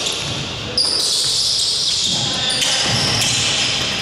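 Basketball being played on a hardwood gym court: the ball bouncing and players moving about, with a sudden rise in level a little under a second in.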